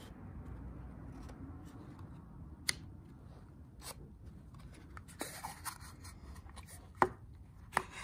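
Wooden panels of a Japanese yosegi marquetry puzzle box (himitsu-bako) being slid and pushed as it is opened: several sharp wooden clicks and taps, the loudest about seven seconds in, with light wood-on-wood sliding scrapes.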